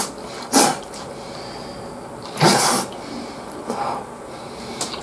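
Eating noises: a man slurping mouthfuls of gyudon (simmered beef and onion over rice) off chopsticks, with a short loud slurp about half a second in and a longer one around two and a half seconds, and smaller mouth sounds between.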